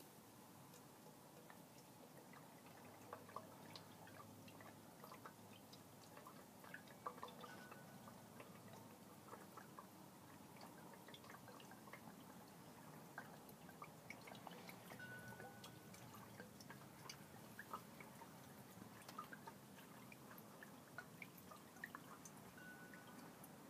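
Faint dripping and trickling of gasoline being poured into the fuel tank of a new 212cc small engine, with light scattered ticks throughout.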